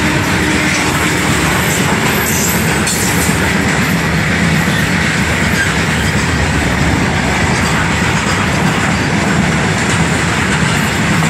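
Freight train of open-top wagons passing close by: a loud, steady racket of steel wheels on the rails and the wagons rattling.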